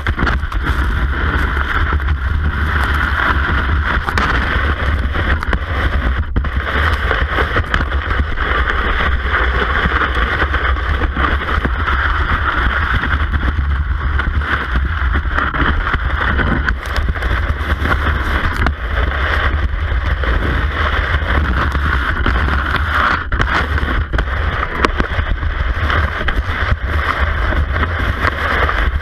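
Steady rushing noise of a cross-country ski gliding over packed snow, heard through a camera mounted on the ski, with low wind rumble on the microphone.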